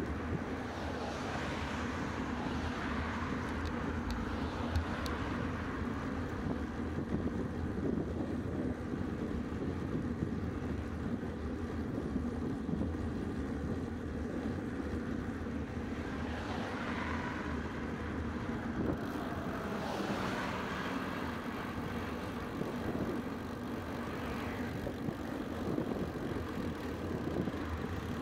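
Steady wind and tyre noise from a road bicycle, picked up by a handlebar-mounted camera. A few cars pass, each rising and fading, around the start, twice in the middle and near the end.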